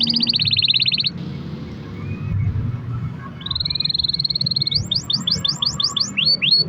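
Canary singing: a fast, high trill that breaks off about a second in. After a short pause comes another trill, then a quick run of repeated sweeping whistled notes, about six a second.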